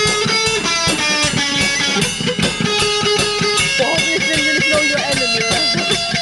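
A young rock band playing live: electric guitars strumming over bass and a drum kit, amplified through stage amps.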